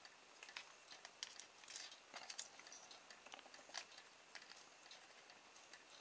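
Near silence with faint small clicks of a plastic RC servo case being handled as its bottom cover comes off and its circuit board is eased out.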